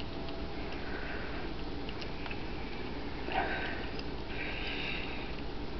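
A kitten eating tuna salad off a china plate: soft sniffing and small wet chewing clicks, with a short louder noise about three and a half seconds in.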